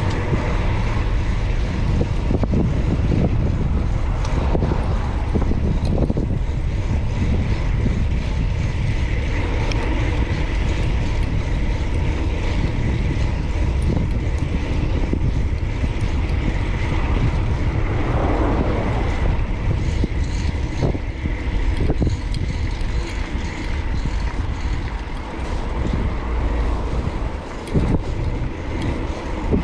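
Wind rushing over the microphone of a bicycle rider moving through city traffic, a steady low rumble with passing vehicles mixed in.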